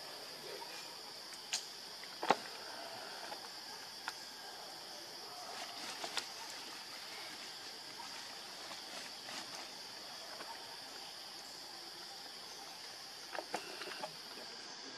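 Steady high-pitched drone of insects in forest ambience, unchanging throughout, with a few short clicks and taps: the loudest about two seconds in and a small cluster near the end.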